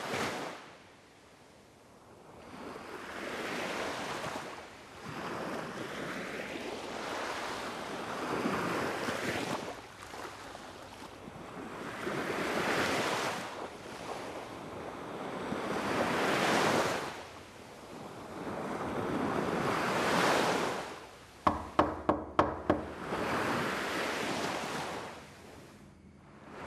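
Sea waves washing onto a beach in slow surges, swelling and fading about every four seconds. About twenty-one seconds in, a quick run of sharp knocks cuts in over the surf.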